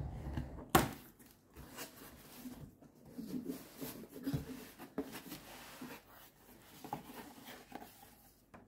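Cardboard shipping box being opened by hand: a sharp knock about a second in, then the stiff flaps rubbing and scraping with small knocks as they are folded back, and a paper leaflet rustling near the end.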